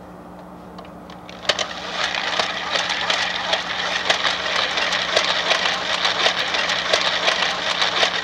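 Hand-cranked Trisonic manual VHS rewinder turning a tape's reels: a dense, irregular plastic rattling whir full of small clicks from the crank and gears. It starts with a sharp click about a second and a half in, after low room hum.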